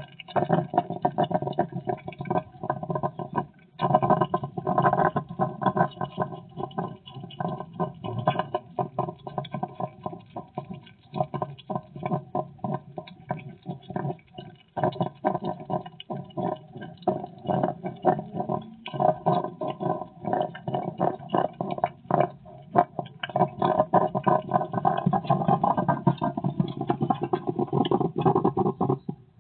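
Hedgehog snuffling and huffing in rapid, irregular puffs, with a couple of short pauses.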